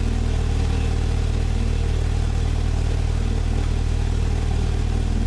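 1995 Jeep Wrangler YJ engine idling steadily just after starting, its exhaust running through a muffler blown out by a backfire.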